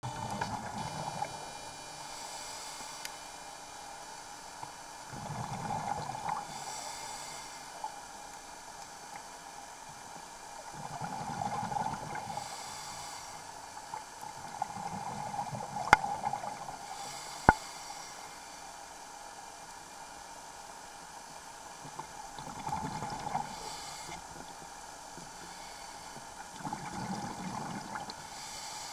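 Scuba diver breathing through a regulator underwater: a short hiss on each inhale and a low bubbling rush of exhaled air, repeating about every five to six seconds. Two sharp clicks, about a second and a half apart, stand out near the middle.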